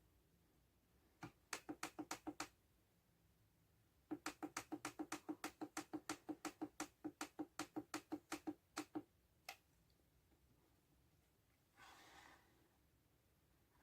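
A rapid, evenly spaced series of short, low-pitched knock-like pulses, in two runs: five quick ones, then about twenty at four to five a second, with a last single one after a pause.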